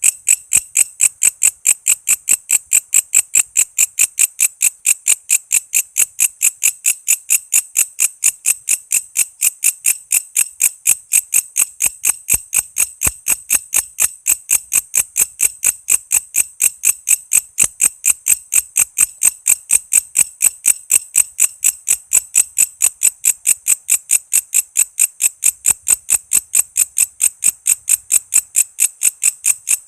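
Walang kece insect calling in a fast, even series of sharp, high-pitched chirps, about four a second, without pause.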